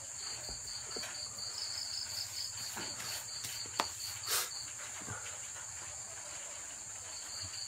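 Crickets chirping at night: a steady high trill runs on under a pulsed chirp of about six beats a second. The chirp stops about a third of the way in and comes back near the end. A couple of faint knocks fall in the middle.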